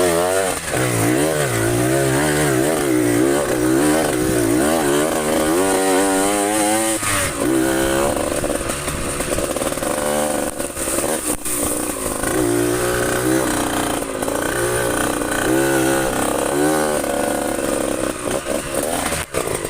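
Trail motorcycle engine running under changing throttle, its pitch rising and falling over and over as it is ridden, with a few short knocks near the middle.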